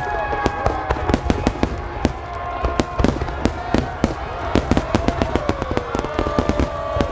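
A large fireworks display: a rapid, continuous string of shell bursts and sharp reports, several a second, over a low rumble, with a few whistling tones gliding slowly downward.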